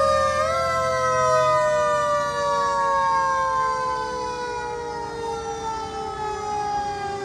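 Fire truck siren sounding one long tone whose pitch falls slowly and steadily throughout.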